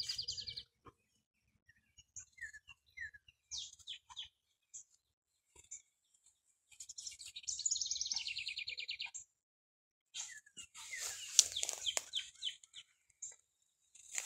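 Songbird trilling, a fast run of high notes just at the start and again for about two seconds midway, with scattered short chirps between. Crackling rustle of grass and brush in the last few seconds.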